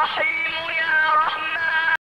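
Music with a melodic line of long held, sliding notes. It cuts off abruptly just before the end.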